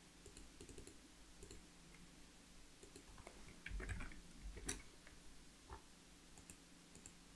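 Near silence with faint computer-mouse clicks and scroll-wheel ticks, a few sharper clicks and a soft knock coming about four to five seconds in.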